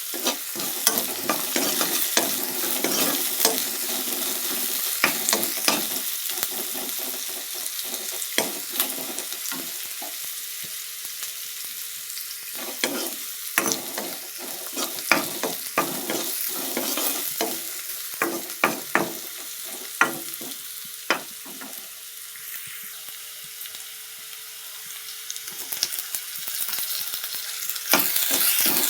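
Kakrol (spiny gourd) frying in hot oil, a steady sizzle with a spatula scraping and knocking against the pan as it is stirred. The sizzle grows louder near the end.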